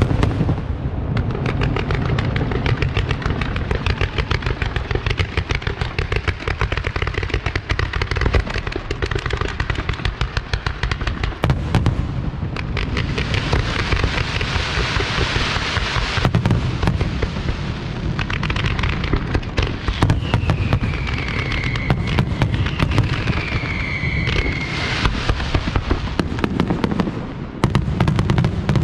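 Fireworks display: a dense, continuous barrage of shell bursts and crackling bangs. Past the middle, two whistles fall in pitch over the bangs.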